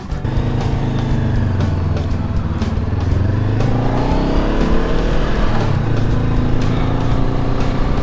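Honda CB500X parallel-twin engine pulling away and riding on, its note rising and falling with the throttle, with faint background music.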